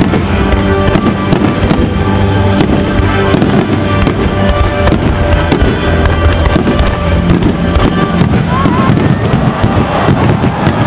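Fireworks display with shells bursting in a dense, rapid run of bangs and crackles, with music playing alongside.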